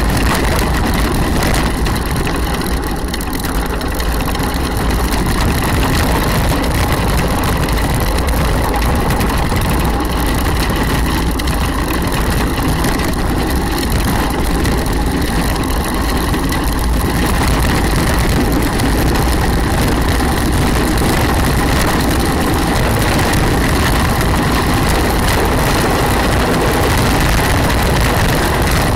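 Steady rush of wind on the microphone and rumble of hard wheels rolling on asphalt, from an engineless gravity racer coasting downhill at speed.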